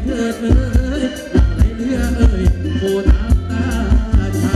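Live Thai ramwong band music: a steady kick-drum beat about twice a second under a bass line, with a voice singing a wavering melody on top.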